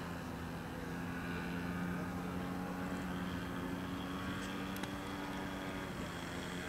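Engine of a radio-controlled scale Boeing F4B-2 biplane running steadily in flight, its pitch shifting slightly near the end.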